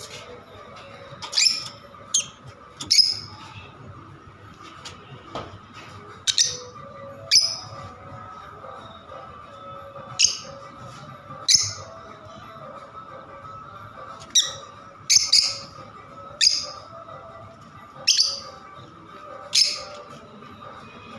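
Pet lovebirds giving short, sharp, high squawking chirps, about fifteen calls scattered irregularly, some in quick pairs, over a faint steady hum.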